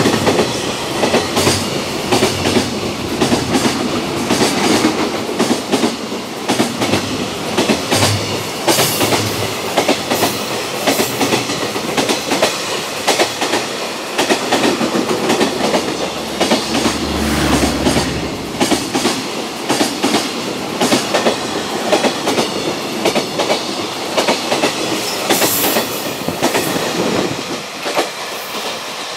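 A long freight train passing at speed, its wagon wheels clacking over the rail joints in a steady, repeating clickety-clack.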